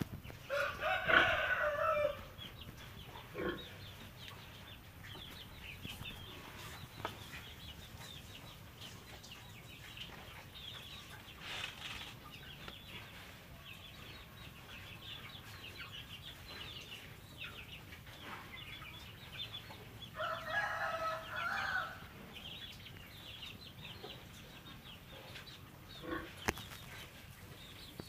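A rooster crowing twice, each crow about a second and a half long, the second about twenty seconds after the first.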